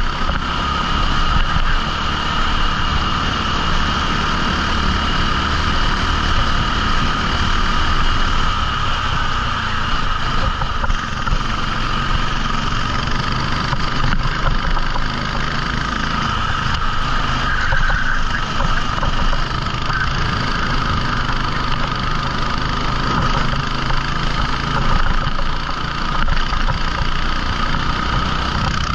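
A 14 hp rental kart's engine running steadily, with no sharp revving changes.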